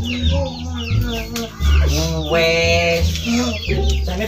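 Chickens clucking in quick short calls, with one longer drawn-out call about halfway through, over background music with a low bass line.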